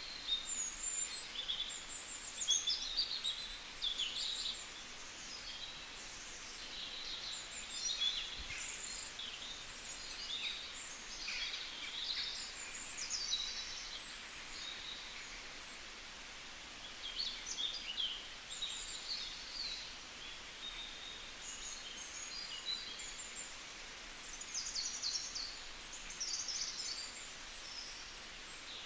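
Several small birds chirping and singing, with many quick high calls and short trills overlapping throughout, over a faint steady background hiss.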